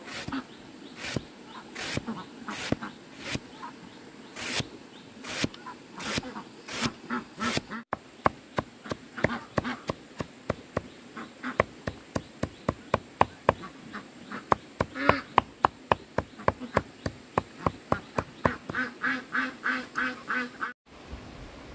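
Repeated sharp knocks, slow at first, then a faster run of about four a second.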